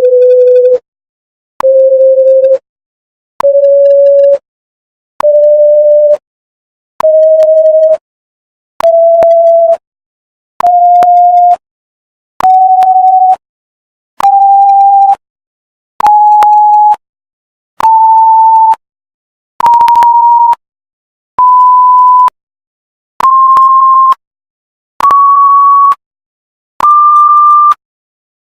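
Censor bleep sound effect: a pure sine-tone beep played about sixteen times, each roughly a second long with a short gap, stepping up in pitch each time from a low bleep to one more than an octave higher.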